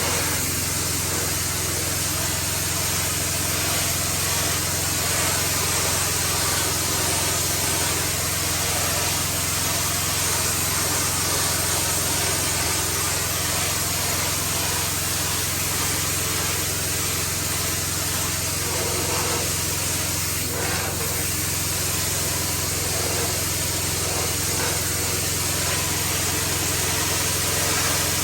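Old pressure washer running steadily: a constant motor drone under the even hiss of the high-pressure water spray.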